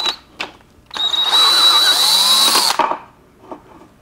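Cordless DeWalt power driver with a socket, run in one burst of just under two seconds to back out a 3/4-inch hex head bolt from the bottom of a T10 four-speed transmission case. The burst is preceded by a couple of light clicks of the socket going onto the bolt.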